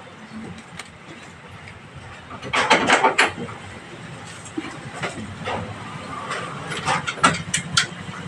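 Metal clinks and knocks from fitting a motorcycle exhaust silencer and handling its mounting bolts and nuts: a cluster of knocks about two and a half seconds in, then scattered sharp clicks.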